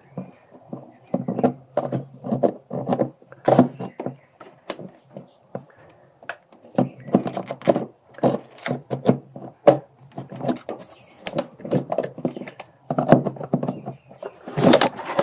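Irregular clicks, knocks and rattles of hands working loose an air cleaner housing and a small hose under a pickup's hood, with low muttering in between. A louder bump and rustle near the end as the camera is knocked.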